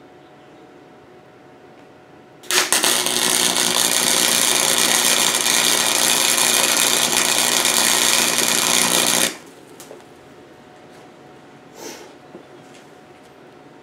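Wire-feed (MIG) welder arc crackling and buzzing steadily for about seven seconds as one continuous weld is laid. It starts about two and a half seconds in and cuts off suddenly.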